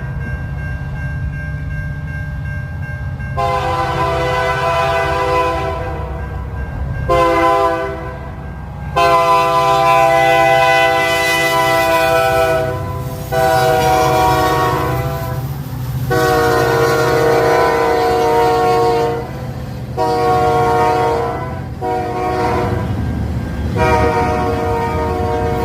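An approaching train sounding its horn: a chord of several tones in a series of blasts, some short and some held for several seconds, over the steady low rumble of the locomotive. The first few seconds hold only the rumble before the horn starts.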